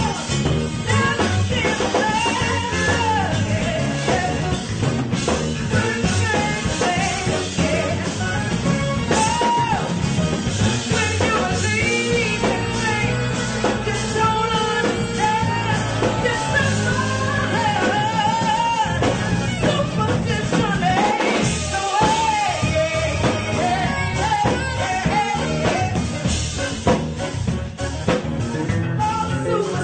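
A live band playing with a woman singing lead into a microphone, over a drum kit, electric bass guitar and keyboard, with alto saxophone in the band.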